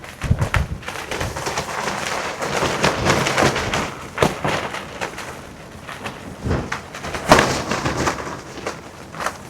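Gusting wind with loose satin clothing flapping and snapping in it: an uneven rush of noise broken by many sharp flaps, with low rumbles of wind buffeting.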